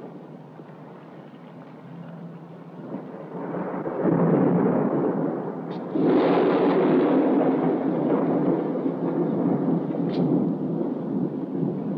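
A deep rumble that swells in suddenly about four seconds in and again at six, then carries on loud and steady. Two faint, brief high tones sound over it.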